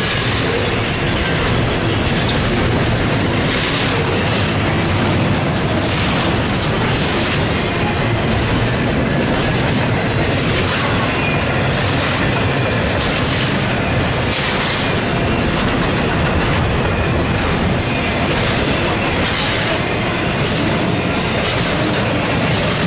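Double-stack intermodal freight train's container well cars rolling past close by: a steady, loud rumble of steel wheels on rail, with a clack of the wheels every few seconds.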